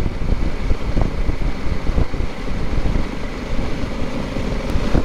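Motorcycle riding at speed, with wind rushing and buffeting over the bike-mounted microphone and the engine and road noise running underneath.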